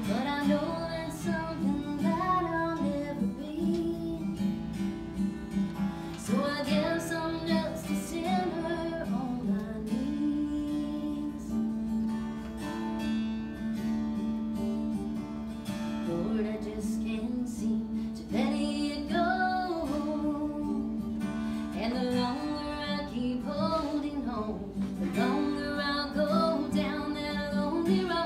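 A woman singing a country gospel song live while strumming an acoustic guitar, with a guitar-only stretch in the middle before the voice comes back.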